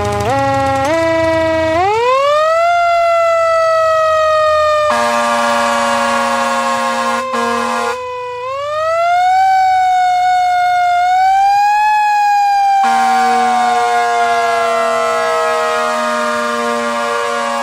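Siren winding up, first in steps and then in a smooth rising glide, then slowly falling, and winding up and down a second time. A steady air-horn blast sounds over it twice: from about five to eight seconds in, and again from about thirteen seconds to the end.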